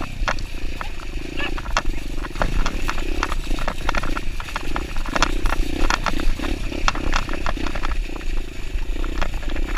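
Kawasaki dirtbike engine running at low revs, the throttle pulsing on and off as it picks its way along a rocky trail, with frequent sharp knocks and clatter from the bike going over rocks.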